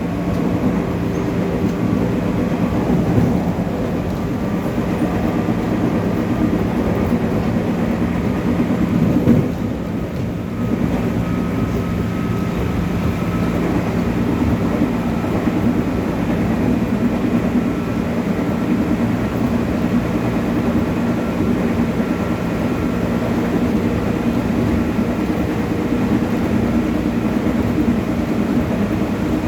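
Running noise inside a JR 205 series electric motor car: a steady rumble of wheels on rail and traction motors, with a faint higher motor tone that comes in after about twelve seconds. The noise briefly drops about ten seconds in.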